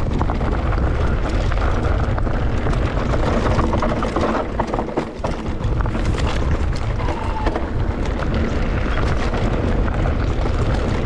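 Wind buffeting the microphone of an electric mountain bike descending a loose dirt trail fast. Tyres crunch over stones and the bike rattles, heard as a dense stream of small clicks and knocks over a steady low rumble.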